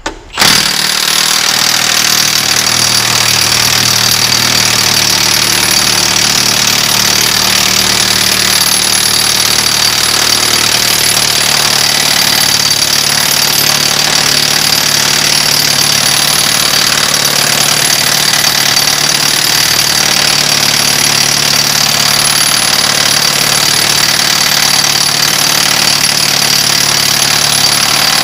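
Milwaukee 3/4-inch impact wrench hammering without let-up on a seized 2 1/4-inch nut of a dozer blade mount. It starts abruptly about half a second in and runs at a steady, loud level.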